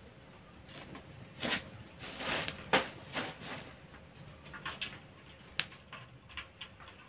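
Scattered crackles and knocks from a wood fire in a clay stove as it is tended, with the loudest knock just before three seconds in and a sharp snap about five and a half seconds in.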